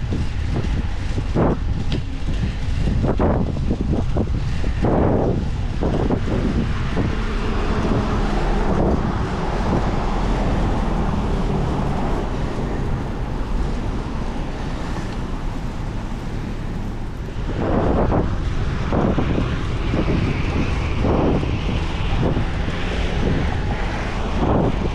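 Wind buffeting the microphone of a riding cyclist's camera in repeated gusts, over a steady rush of road and traffic noise.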